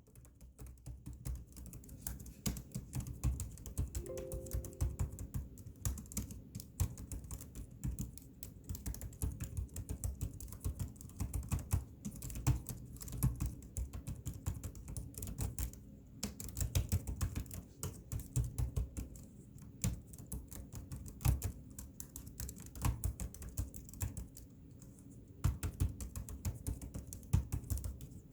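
Rapid, irregular clicking and tapping throughout, over background music.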